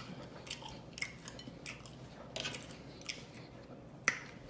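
Close-up eating sounds of seafood being chewed: wet chewing and lip smacking with irregular clicks a few times a second, and a louder smack near the end.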